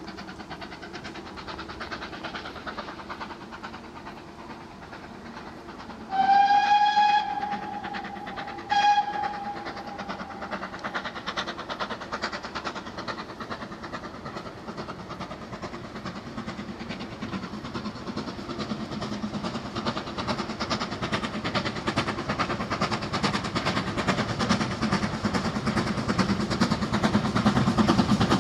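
GWR 5101 Class large prairie tank No 4160 sounds its whistle, one long blast and then a short one. Then its exhaust beat and the train's running noise come on rapid and even, growing steadily louder as the engine approaches.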